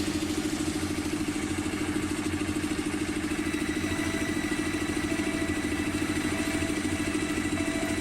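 An engine running steadily with a fast, even pulse, the kind that drives construction machinery.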